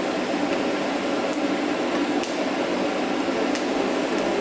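TIG welding arc running steadily on a turbo downpipe, a constant buzzing hiss while the filler rod is dipped into the weld puddle, with a few faint ticks.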